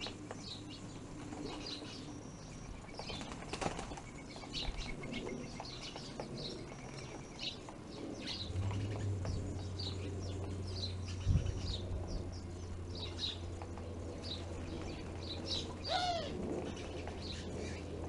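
Many small birds chirping in short, repeated calls, with wings fluttering as they fly in and out. A steady low hum comes in about halfway through, with an occasional knock.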